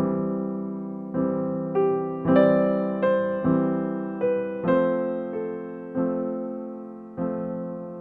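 Background piano music: slow, soft chords struck about once a second, each left to ring and fade before the next.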